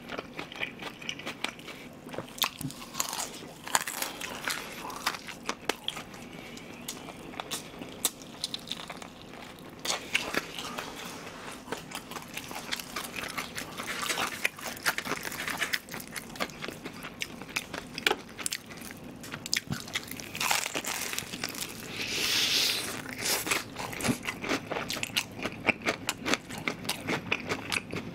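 Close-miked chewing and crunching of fried chicken: a steady run of many short crunches and mouth sounds as the batter and meat are bitten and chewed.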